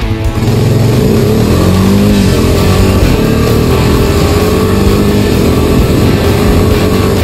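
Honda Rancher 420 ATV's single-cylinder engine running under load as it is ridden. Its pitch rises and falls about one to two seconds in, then holds steady.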